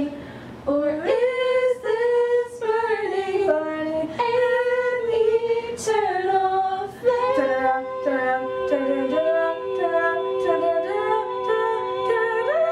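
Female voices singing unaccompanied in long held notes, one melody line at first, then several voices in harmony from about seven seconds in.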